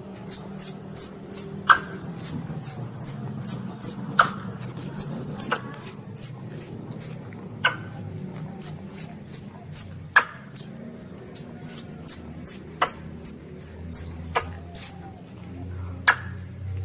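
Baby Asian palm civets squeaking: rapid, short, high-pitched falling squeaks, about three a second, with an occasional sharp click and a low hum underneath that grows louder near the end.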